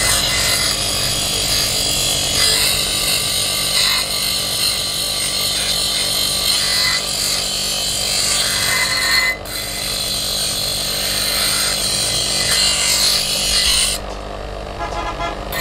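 Electric bench grinder's abrasive wheel grinding a steel cleaver blade forged from an old file: a steady rasping hiss over the motor's hum. The blade comes off the wheel for a moment about nine seconds in, and again near the end, when only the running motor is left.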